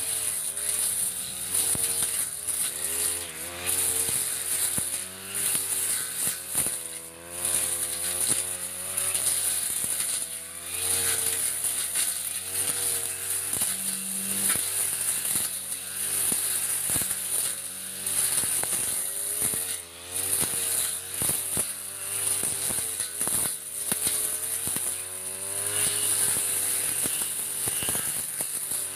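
Backpack brush cutter's small petrol engine running at high speed, its pitch rising and falling continually as the blade sweeps back and forth through thick grass.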